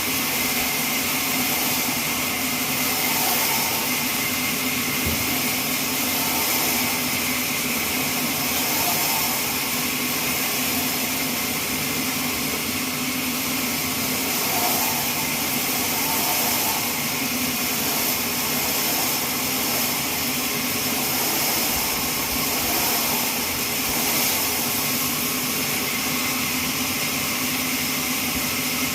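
Horizontal trolley bandsaw mill running steadily as it saws a neem log: an even high hiss over a low motor hum.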